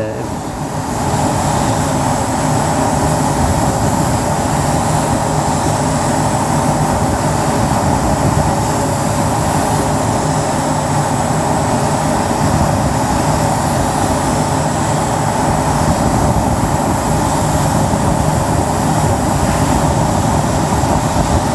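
Steady rushing hiss of compressed air, growing louder about a second in and then holding: an air spray gun laying paint on a guitar body, heard from inside a painter's helmet.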